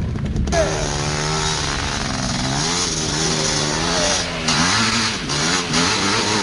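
Quad (ATV) engine revving, its pitch rising and falling again and again with the throttle. A low, rapid rattle in the first half second cuts off abruptly.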